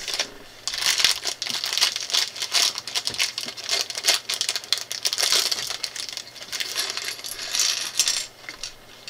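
A LEGO plastic polybag crinkling as it is handled and shaken open, with small LEGO pieces clattering out onto a wooden tabletop. The crackling and clicking is dense and almost constant.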